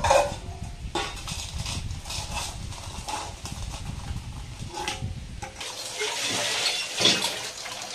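Stainless steel bowls and plates clinking and scraping as they are scrubbed on a wet floor. About six seconds in, water from a tubewell spout starts splashing over a steel bowl being rinsed.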